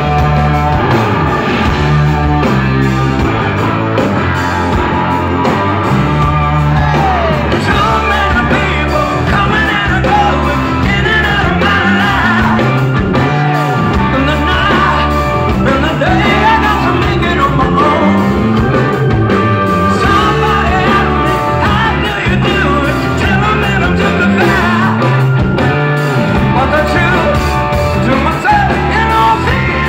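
A rock band playing loudly live, with electric guitar, bass guitar and a lead singer, heard from within the audience.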